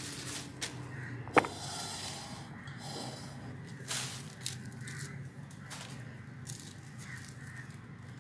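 White bread slices torn apart by hand and the pieces dropped into a glass bowl: irregular rustling and tearing with a few sharp clicks, the loudest about a second and a half in, over a steady low hum.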